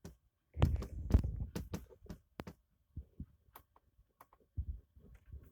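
Irregular low thumps and short clicks: a dense cluster of heavy thumps for about a second and a half, then single scattered clicks and thuds with silence between them.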